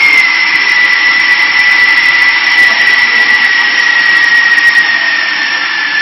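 Compressed air hissing loudly through the pneumatic fittings of a solar water heater inner-tank leak-test machine, with a steady whistle that slowly drops in pitch.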